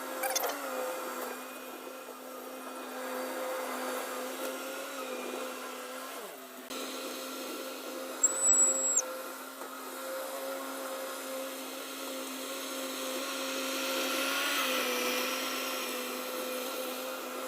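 Bobcat skid-steer loader engine running steadily at a fixed pitch as it works, swelling slightly near the end. A short, high whistle-like tone comes about eight seconds in.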